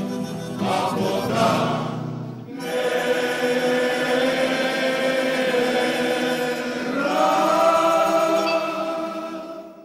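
Choir singing a slow chant in long held chords, moving to a new chord about two and a half seconds in and again about seven seconds in, then fading out at the end.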